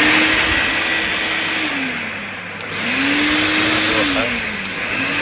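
Three-motor 90-litre wet/dry vacuum cleaner running loudly. A motor's whine rises, holds and falls again about every two and a half seconds, as the motors are switched in and out.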